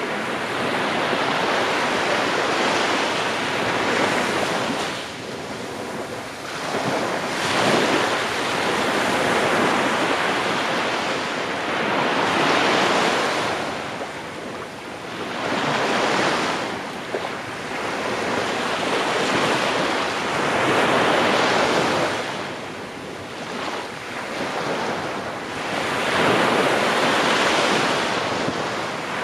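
Small waves breaking and washing up a sandy beach, the surf surging and easing every few seconds, with wind buffeting the microphone.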